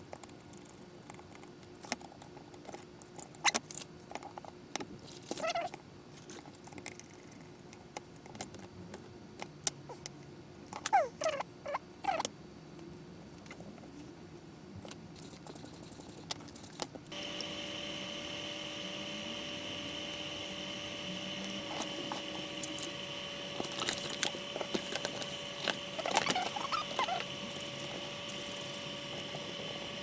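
Hands taking apart a graphics card and its cooler with a small screwdriver: scattered clicks and taps of tools and metal parts, with a few short squeaky sounds. About halfway through a steady hum with a high whine sets in underneath.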